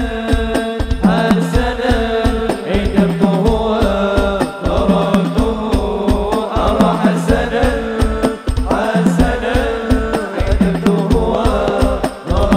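Sholawat devotional song, male voices singing in Arabic over hadrah percussion: a mallet-struck hadrah bass drum and hand-played rebana frame drums keep a steady, driving beat.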